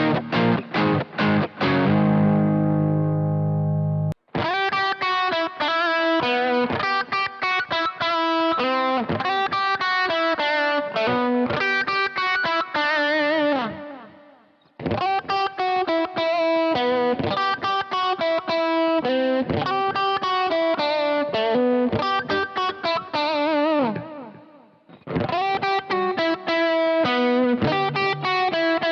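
Washburn Sonamaster S1 electric guitar, a Strat-style guitar with three single-coil pickups, played through distortion. It starts with strummed chords that cut off suddenly about four seconds in. Melodic single-note lead lines with vibrato follow; the playing dies away twice and starts again.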